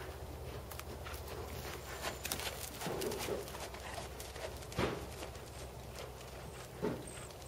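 Hoofbeats of a Percheron/Thoroughbred gelding cantering on dirt arena footing, a run of soft repeated thuds. Two louder thumps come about halfway through and near the end, over a low steady rumble.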